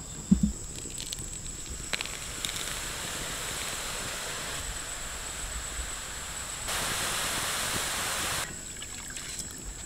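Hot oil sizzling and bubbling steadily as strands of gram-flour sev dough, pressed in through a hand press, deep-fry in the pan. The sizzle gets louder for a second or two near the end, then drops back, and there is a thump just after the start.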